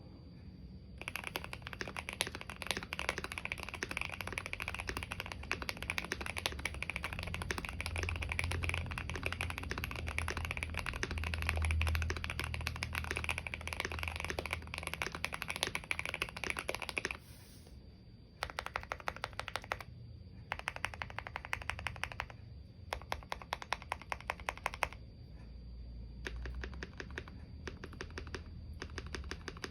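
Typing on a Keychron Q1 mechanical keyboard with a polycarbonate plate and lubed, filmed Jwick Black linear switches. Fast continuous typing for about sixteen seconds stops suddenly, then comes back in several short bursts with pauses between them.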